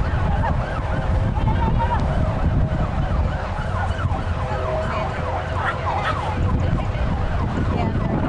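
Wind buffeting the microphone, with quick rising and falling warbling tones running over it.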